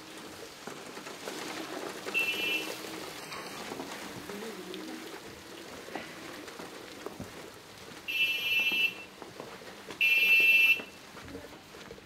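Three short, high-pitched electronic beeps, each under a second long: one about two seconds in and two close together near the end, the last the loudest. Underneath is a steady hiss of falling wet snow with faint distant voices.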